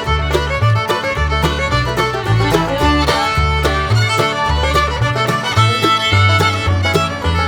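Background music: an upbeat fiddle tune in a bluegrass or country style, with a bass line that moves steadily under it.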